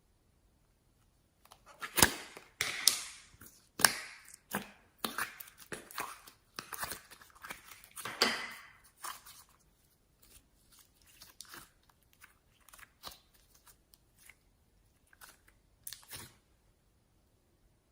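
Slime being squeezed and worked by hand: irregular sticky crackles, clicks and squishy pops, dense for the first half and then sparser.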